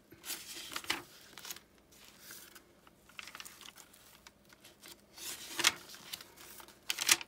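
Paper pages of a handmade junk journal being turned by hand, rustling in a few short strokes, the loudest about two-thirds through and just before the end.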